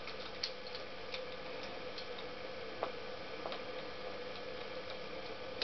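Light, irregular metallic ticks and clicks from a small hand tool being worked against the engine, over a faint steady hum.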